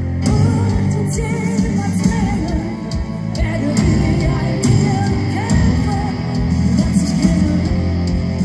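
Live heavy metal band: a woman sings long, wavering notes over electric bass or guitar, keyboards and drums.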